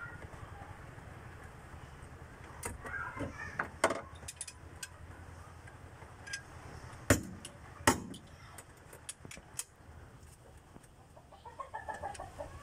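Sharp metal clinks and knocks of a socket wrench and extension working the head bolts of a Mitsubishi 4D56 cylinder head, the two loudest clanks about a second apart midway. Chickens cluck in the background, briefly early and again near the end.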